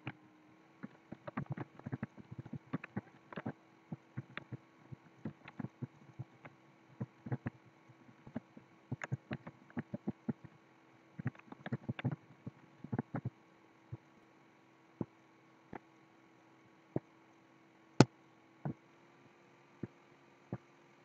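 Computer keyboard typing: rapid, irregular key clicks that stop about two-thirds of the way through. After that come single mouse clicks about a second apart, one of them much louder, over a faint steady hum.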